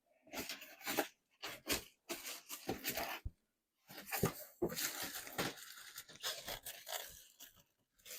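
Cardboard and polystyrene packaging being handled and pulled about: irregular scraping, crunching and rustling, with short pauses.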